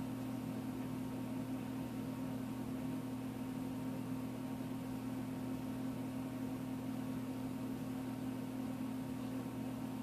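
Steady low hum with a faint hiss: room tone, with no distinct sounds.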